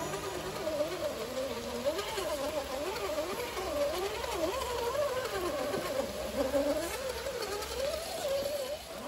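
Electric motor and gear whine of an RC crawler truck, its pitch rising and falling quickly with the throttle as it crawls over rocks.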